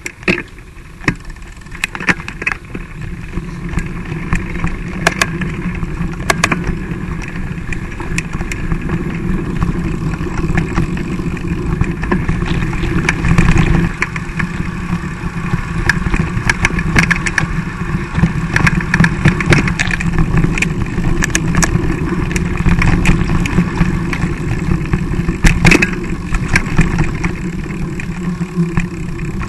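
Mountain bike ridden over a rough grassy trail: a steady low rumble of wind and rolling on the mounted camera's microphone, with frequent clicks and knocks as the bike rattles over bumps.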